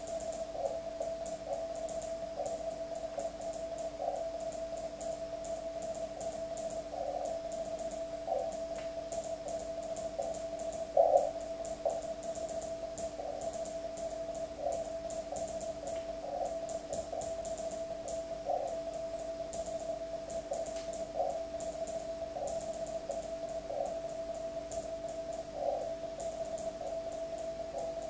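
Morse code on an amateur radio transceiver: a single-pitch CW tone that flickers with the keying, over the rapid light clicking of a hand-made Morse key being worked. One louder knock comes about eleven seconds in.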